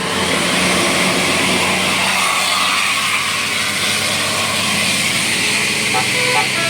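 A bus driving past, with loud steady engine and road noise. Near the end a telolet multi-tone horn starts playing a quick run of short notes at changing pitches.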